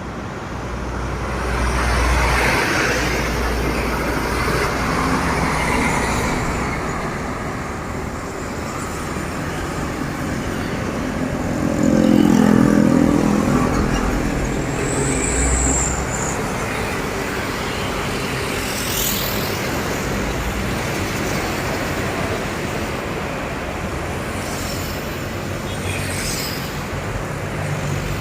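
Heavy trucks driving past on a road, one after another, with engine rumble and tyre noise. The loudest pass comes about twelve seconds in.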